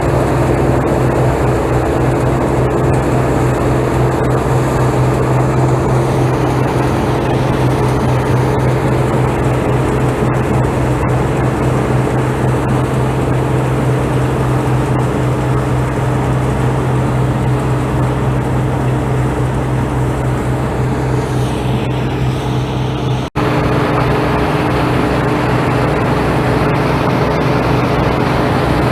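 Combine harvester engine and threshing machinery running steadily at working speed, a constant loud drone over mechanical noise, with a momentary break about 23 seconds in.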